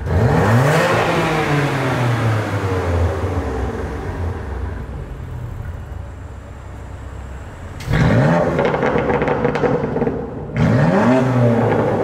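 BMW M2 Competition's twin-turbo straight-six, fitted with Active Autowerke mid-pipes, free-revved at a standstill with the exhaust valves closed. A sharp rev near the start falls slowly back. Two more quick revs follow near the end, with crackle through the exhaust.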